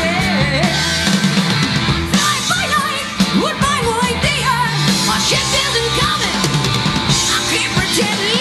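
Live hard-rock trio playing: a high male voice singing over electric guitar, bass guitar and drums.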